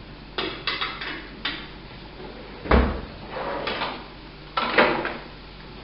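Kitchen handling sounds off to the side: a series of sharp knocks and clatters, about six in all, from containers and utensils being picked up and set down. The loudest is a dull thump about three seconds in.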